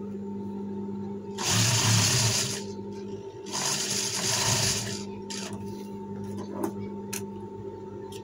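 Industrial lockstitch sewing machine stitching a seam in two short runs, each a little over a second long. Afterwards a few light clicks as the thread is snipped.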